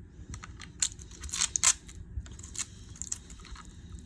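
Packing tape being peeled and torn off, with plastic clicks and rattles as a taped-in power-tool battery is worked free of its packaging. The loudest scratchy tearing comes about a second and a half in.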